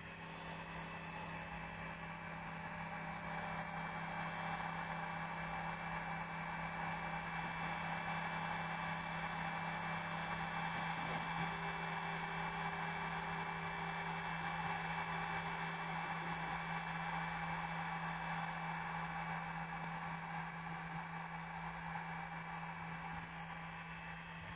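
Bench stepper motors driven by a CNC controller during a homing move, giving a steady hum with an even whirring hiss. The sound swells over the first few seconds, holds steady, and eases slightly near the end.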